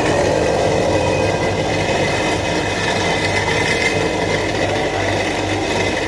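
Soybean grinding machine running steadily: its electric motor and grinding wheel give a continuous mechanical drone with a thin, steady high whine.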